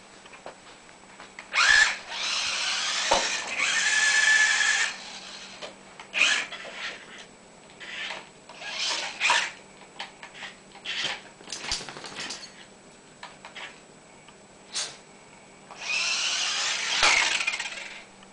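Small electric motor of a remote control toy car whirring in bursts of one to three seconds as it is driven, with short clicks and knocks in between.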